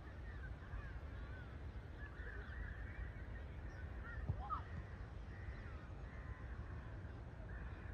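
Birds calling, many overlapping chirps, with one louder rising call about four seconds in, over a steady low rumble.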